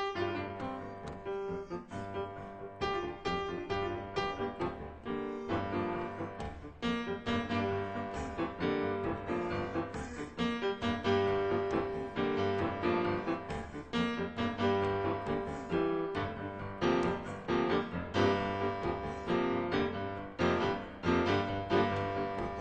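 Solo piano music played as a soundtrack, a steady flow of struck notes that ring on.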